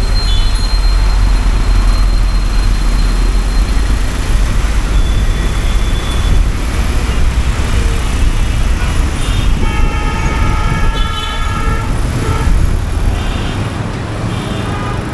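Heavy traffic: a steady, loud low engine rumble, with a vehicle horn held for about a second roughly ten seconds in and a few shorter horn toots near the end.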